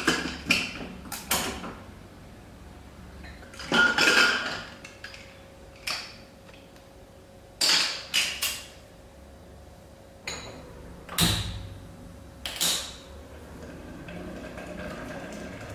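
Metal creaks, clicks and knocks from a Prestige aluminium pressure cooker's lid being twisted and locked shut, then unlocked and lifted off. The sounds come as scattered short knocks with quiet gaps between them.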